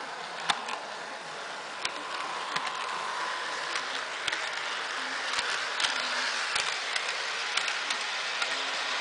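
Model electric train running along sectional track: a steady hiss of the motor and wheels, with irregular sharp clicks from the wheels on the track.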